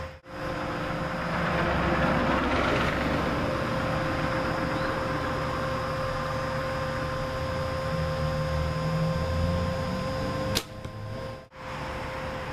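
A compound bow shot once near the end, a single sharp snap of the release, over a steady mechanical hum with a constant tone.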